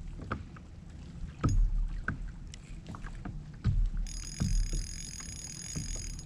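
Water slapping and knocking against a plastic fishing kayak's hull in irregular low thumps while a big hooked fish pulls the boat around. A faint steady high whine comes in about four seconds in.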